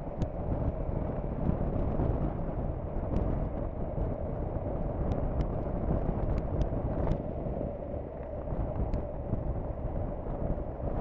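Steady wind rush on the microphone mixed with the drone of a Honda NC750X motorcycle riding along at road speed, the wind partly filtered out by noise reduction.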